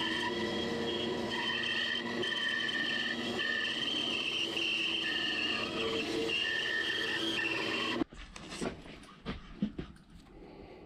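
Bandsaw running and cutting through a thick block of apple wood, a steady whine with several held tones. The wood is loaded with hidden nails, and the bandsaw blade is ruined by them. About eight seconds in the sawing stops abruptly, and a few light knocks follow as the sawn block is handled.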